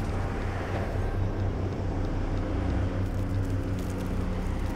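Heavy truck's engine running steadily as it drives along the road: a low, even hum.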